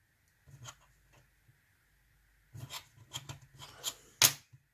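Light clicks and scraping of small metal padlock parts being handled and set down on a work surface during disassembly, with a sharper click near the end.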